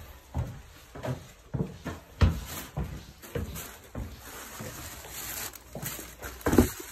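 Footsteps going up wooden stairs and onto a wooden floor, a series of uneven knocks about half a second apart. A plastic shopping bag rustles near the end.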